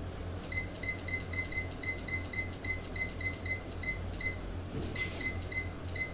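Digital thermometer-hygrometer clock beeping at each button press while its date and time are set: rapid short high beeps, about four a second, a brief pause with a click, then a few more beeps near the end.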